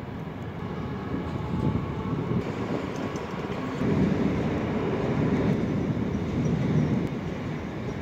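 Red electric commuter train running past on a steel truss railway bridge: a steady rumble of wheels on rails that grows louder about halfway through and eases near the end as the train clears.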